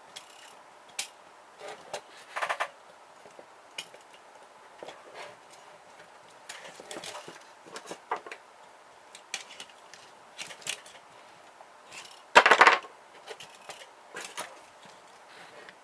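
Small plastic and metal parts of a ribbon printer clicking and rattling as it is taken apart by hand, with a louder half-second clatter about twelve seconds in.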